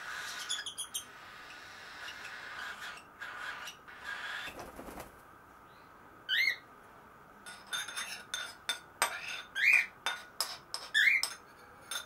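Baby cockatiels calling while being hand-fed: a stretch of chattering begging calls for the first few seconds, then three short rising chirps in the second half. A string of light clinks, a spoon against a ceramic bowl of formula, runs among the chirps.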